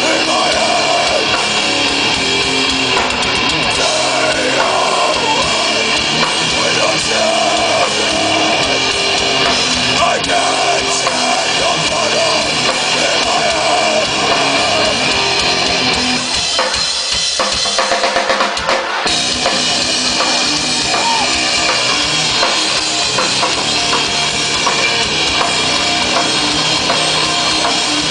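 Live rock band playing loudly, with a drum kit prominent throughout. About two-thirds of the way through, the bass and drums drop out for a few seconds and the upper instruments carry on alone, then the full band comes back in.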